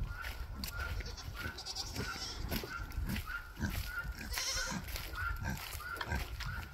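Footsteps crunching on dry straw mulch at a steady walking pace, about two steps a second, with farm animals calling from the pens.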